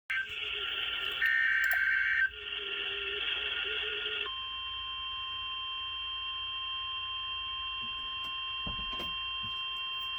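Emergency Alert System SAME header: screeching digital data bursts for about four seconds, then a steady single-pitched alert tone starting about four seconds in, the attention signal that comes before a warning message.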